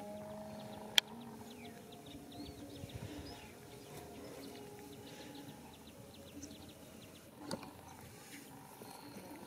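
Small birds chirping over and over, with a steady low hum underneath and one sharp click about a second in.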